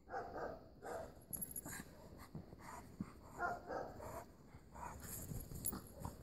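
Two dogs, a Dogue de Bordeaux and a small white dog, play-fighting in snow: a string of short dog vocalisations, with scuffling in the snow between them.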